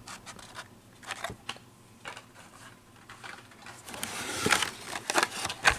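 Blister-carded Hot Wheels die-cast cars being handled and pulled from their case: scattered light clicks of plastic blisters and card, then a louder crinkling rustle of packaging about four seconds in.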